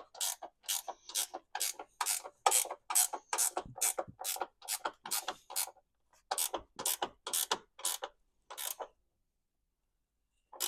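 Hand ratchet wrench being worked back and forth on a bolt, its pawl clicking in quick, even strokes about three to four a second. There is a brief pause about six seconds in, then a few more strokes.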